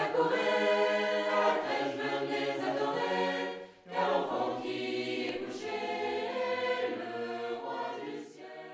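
A choir singing sustained notes in two phrases, with a brief break just before four seconds in, fading out near the end.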